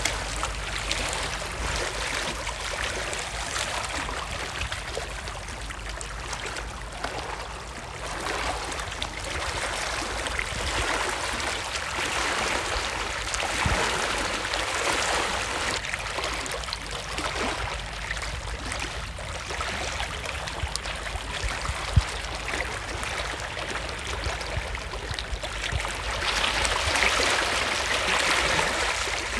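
Shallow seawater washing and trickling over rocky reef shoreline, small waves lapping in a steady rushing wash that swells and ebbs, growing louder near the end. One sharp click about two-thirds of the way through.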